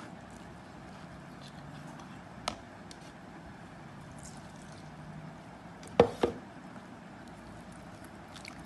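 Green pandan juice poured through a plastic strainer into a plastic bowl of glutinous rice flour as a hand works the dough, over a steady low hiss. A light click about two and a half seconds in, and two sharp knocks in quick succession about six seconds in.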